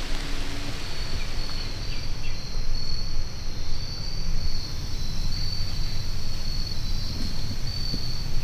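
A chorus of evening insects trilling steadily at a high pitch, starting about a second in, over a low rumbling background noise.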